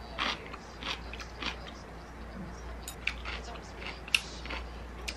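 Metal spoon scraping and clinking against a ceramic bowl while scooping porridge, with close-up chewing. A handful of short, sharp scrapes and clicks, the sharpest about four seconds in.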